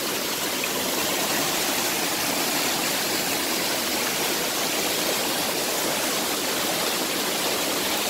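A waterfall pouring and splashing over rocks at close range: a loud, steady, even rush of water.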